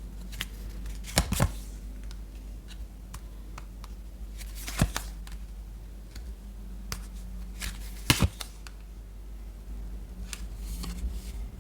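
Tarot cards being shuffled and handled: scattered sharp clicks and flicks, the loudest about a second in and again near five and eight seconds.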